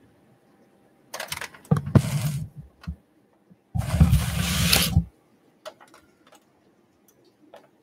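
Packaging being handled and torn open: two rustling, ripping bursts about a second each, with a few clicks and taps between and after.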